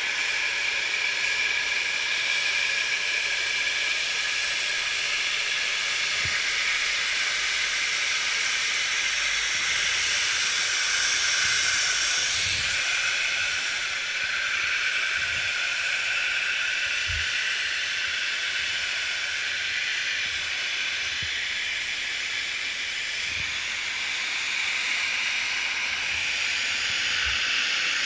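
Snowmaking guns blowing with a steady hiss. The sound swells, peaks with a thin high whistle from about ten to thirteen seconds in, then drops sharply.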